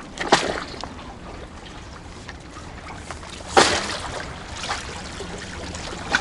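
Seawater lapping and trickling among the concrete tetrapods of a breakwater, with two sharp, loud sounds, a short one near the start and a stronger one about three and a half seconds in.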